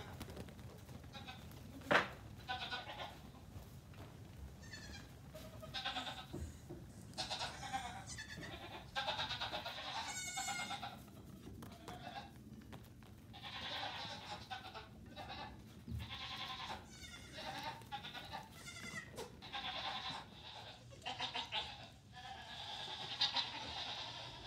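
Nigerian Dwarf goat kids bleating again and again, high cries that come one after another through the whole stretch, with a single sharp knock about two seconds in.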